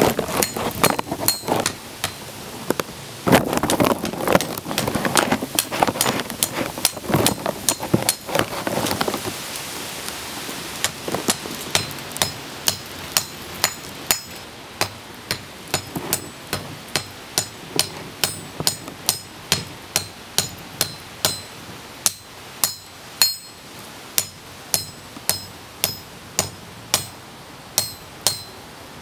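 Hand hammer striking a red-hot farrier's rasp on an anvil as the blade is forged. It is a steady run of blows, roughly one and a half a second, each with a bright ring from the anvil. In the first third the blows come louder and busier, with a denser din between them.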